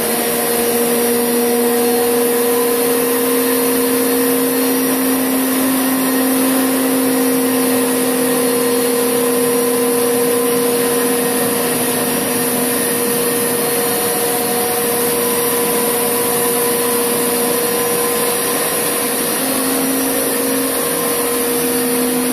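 Hoover Power Scrub Deluxe carpet cleaner running on rinse, a steady motor hum with the hiss of its suction as it is pushed over carpet.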